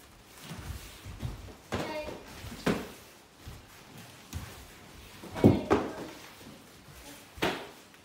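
Children's karate kicks striking handheld kick mitts, several separate thuds with the loudest about five and a half seconds in, mixed with brief children's shouts.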